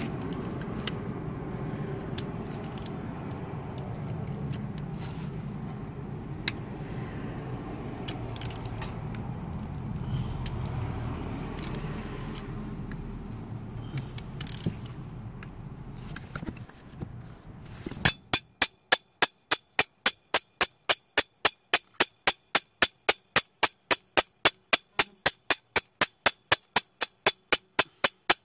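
A steady low rumble with a few scattered metallic clicks. About two-thirds of the way in it gives way to a long run of evenly spaced sharp clicks, about four or five a second, from a socket ratchet wrench being worked on the glow plugs.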